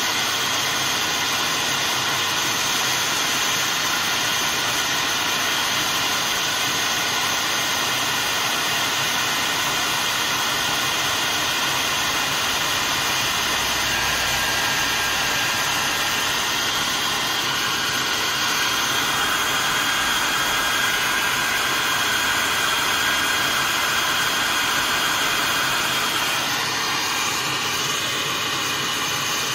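Electric hot-air dryer blowing steadily, a rushing airflow with a faint steady whine; the sound shifts slightly near the end.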